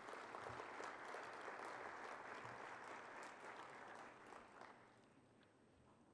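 Audience applauding in a hall, the clapping dying away about five seconds in.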